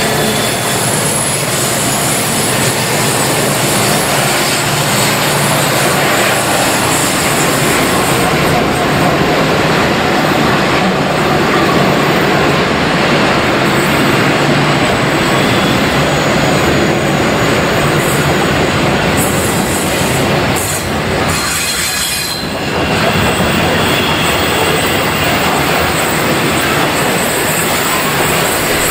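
A freight train passes close by, led by NSW 81 class diesel-electric locomotives with 16-cylinder EMD two-stroke engines. The engine drone gives way after several seconds to the steady rumble and clatter of loaded container wagons rolling past. At times the wheels squeal on the curve.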